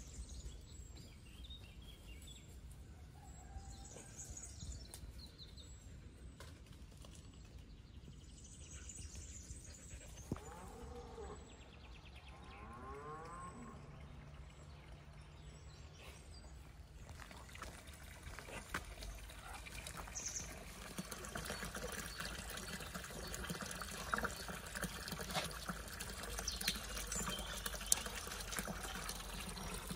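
Running water, a trickle or small stream, heard faintly at first and growing into a steady splashing hiss from a little past halfway. A few short chirps sound before the water grows louder.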